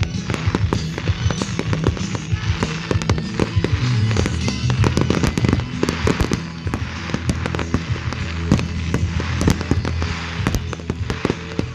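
Fireworks display: a dense, continuous string of bangs and crackles from bursting aerial shells and rising mines, over music with steady bass notes.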